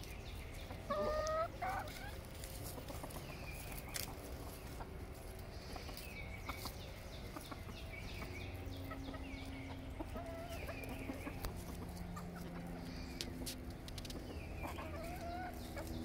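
Hens clucking and making short calls while they feed, with one louder call about a second in.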